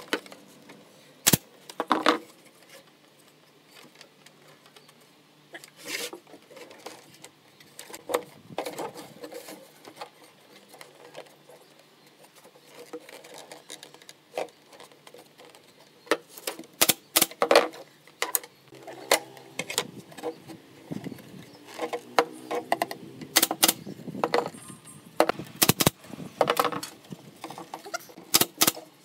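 Wooden slats and panels clacking and knocking against each other and the workbench as they are handled, in scattered sharp clicks, some in quick runs, more frequent in the second half.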